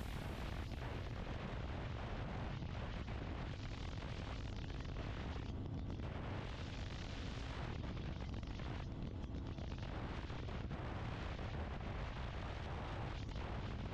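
Steady wind rumble buffeting the action-camera microphone on a motorcycle at highway speed, mixed with road and engine noise from a KTM Duke 250.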